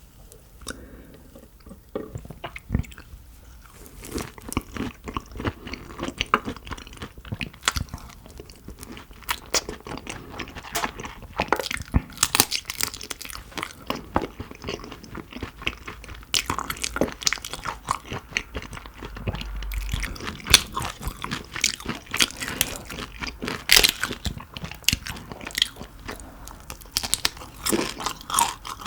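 Close-miked eating of shrimp: a steady run of crunchy bites and chewing, full of sharp crackles.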